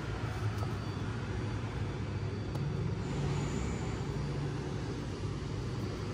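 Steady low rumble of road traffic in the background.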